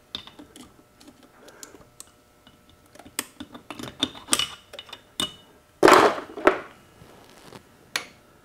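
Steel snap ring pliers working the rear snap ring off a Borg-Warner T10 four-speed mainshaft: a run of small metal clicks and clinks with a light ring, and a louder clatter of metal parts about six seconds in.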